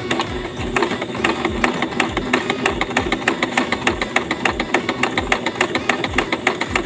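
Janome portable electric sewing machine running steadily, its needle and feed making a quick, even train of clicks over the motor hum as it stitches the first step of a buttonhole.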